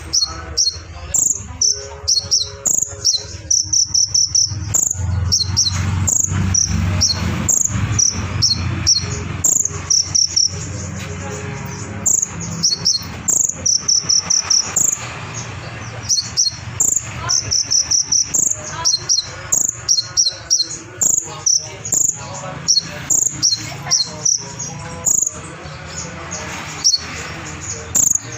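Konin (sunbird) singing a fast, sharp, high-pitched song of quick repeated chirps and trills, with cricket-like chirping phrases mixed in, which the title gives as mimicked cililin and cricket calls.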